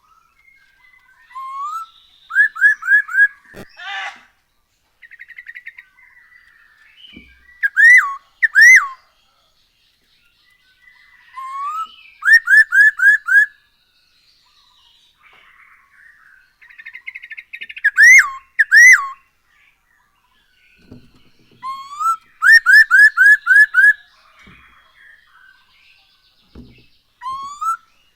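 Poksay Hongkong (masked laughingthrush) singing loud, clear whistles: runs of four or five quick rising notes alternate with pairs of single slurred whistles, with softer chattering between. The phrase pattern comes round about every ten seconds, and a short click sounds about four seconds in.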